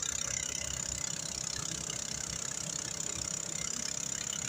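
Engine idling steadily, a low pulsing rumble with a constant high hiss over it.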